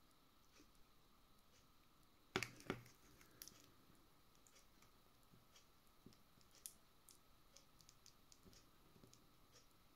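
Faint clicks and ticks of a smartphone's screen assembly and parts being handled by hand, with two sharper clicks close together about two and a half seconds in and scattered small ticks after.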